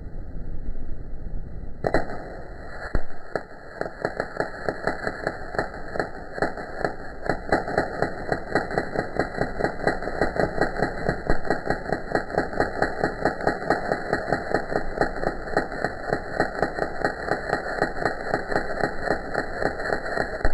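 A wire-feed (MIG) welding arc on steel, striking about two seconds in and then running as a steady, dense crackle that pulses about three times a second, with one sharp crack shortly after it starts.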